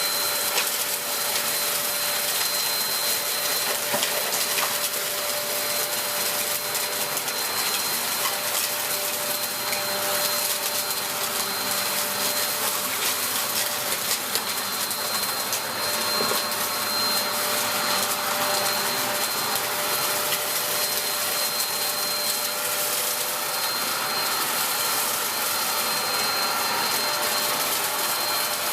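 Dyson DC03 upright vacuum cleaner running steadily: a rush of air with a steady whine, and scattered small clicks throughout.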